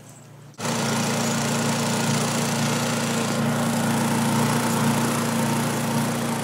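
An engine running steadily and loudly close by, coming in abruptly about half a second in, with a strong low hum and an even rattle and hiss over it.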